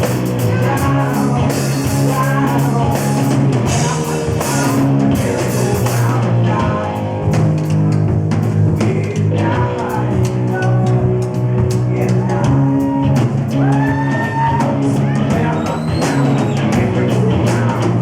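Rock band playing live, with a drum kit and a steady beat under sustained pitched instruments.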